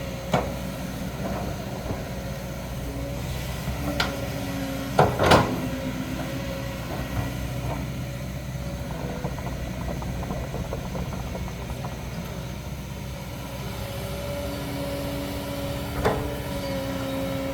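Kobelco excavator's diesel engine running steadily, with sharp knocks from the machine at work: one just after the start, one about four seconds in, a loudest pair about five seconds in, and another near the end.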